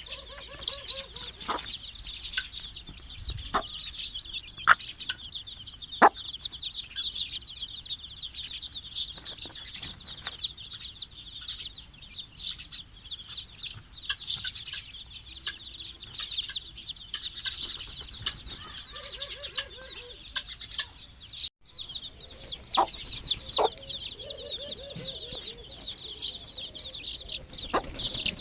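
A brood of desi chicken chicks peeping continuously in rapid, high-pitched cheeps, with a few lower clucks in the second half and scattered sharp taps.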